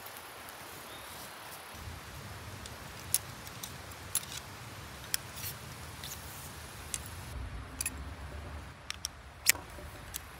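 Scattered sharp clicks and light taps, about ten of them, irregularly spaced, the loudest near the end, over a steady outdoor hiss, with a low rumble starting about two seconds in.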